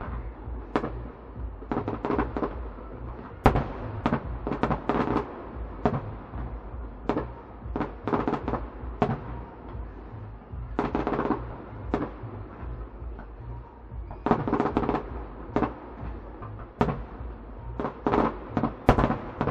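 Fireworks display: aerial shells bursting in rapid volleys of sharp bangs and crackles, with short lulls between the volleys.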